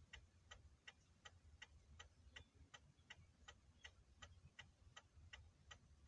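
Car's hazard-light flasher ticking steadily, about two to three clicks a second.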